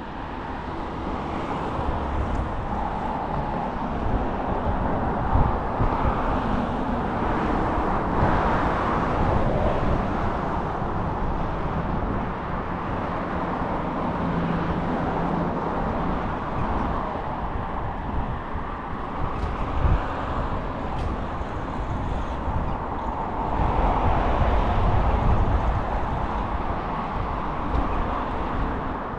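Street ambience with road traffic: a steady low rumble of vehicles, swelling louder as vehicles pass, about eight seconds in and again near the end.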